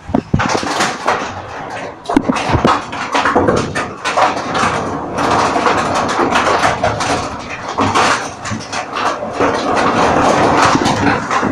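Storm: a loud, continuous rush of heavy precipitation, dense with sharp pattering impacts, swelling louder in the second half.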